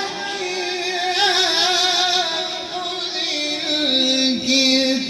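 A man's voice chanting the Quran in a slow, melodic recitation style, holding a long, ornamented note that steps down in pitch, then starting a new phrase near the end.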